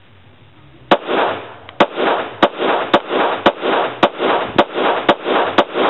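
A 5.56mm AR-15 pistol with a 10.5-inch barrel and a Surefire flash hider, fired without a suppressor: nine shots in steady succession, about two a second, starting about a second in. Each shot is followed by a rolling echo.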